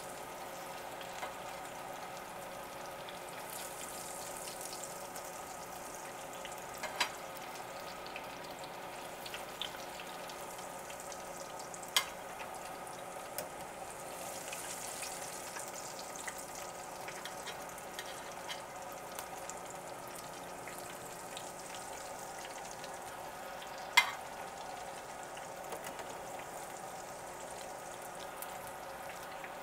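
Chicken nuggets sizzling and bubbling steadily in hot oil in an electric deep fryer, with a few sharp clicks of metal tongs against the wire basket, the loudest about two-thirds of the way through.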